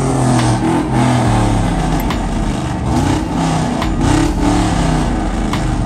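Truck engines running and revving, loud and continuous, their pitch rising and falling.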